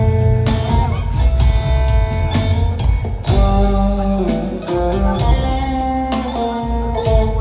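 Live rock trio of guitar, bass guitar and drum kit playing an instrumental passage without vocals: held guitar notes over bass and regular drum strikes.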